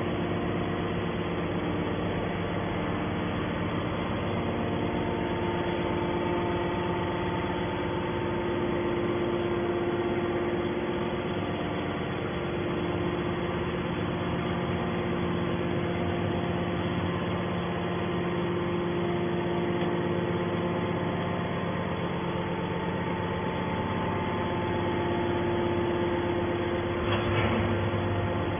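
Hydraulic can baler's motor and pump running with a steady, many-toned hum; a brief louder sound breaks in near the end.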